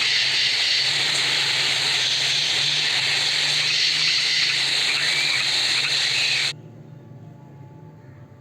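A loud, steady hiss from a relaxation-app noise track, played at full level and cut off abruptly about six and a half seconds in.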